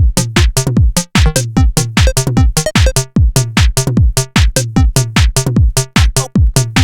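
Electronic juke track: a fast drum-machine beat of about four or five hits a second, with deep bass kicks that slide down in pitch.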